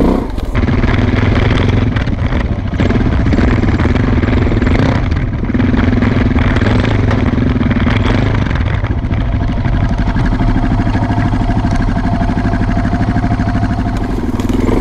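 Suzuki DR650's single-cylinder four-stroke engine running steadily as the bike is ridden, easing off briefly a couple of times in the first few seconds.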